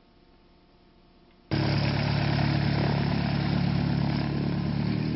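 A single-engine light aircraft's piston engine and propeller running loudly and steadily. The sound starts abruptly about a second and a half in, after a faint low hum, and its note shifts slightly near the end.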